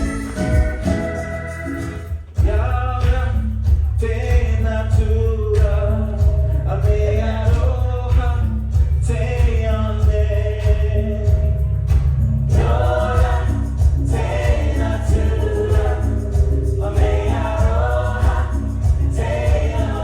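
Stage-show music: a group of voices singing over a steady, heavy bass beat. It starts up after a brief break about two seconds in.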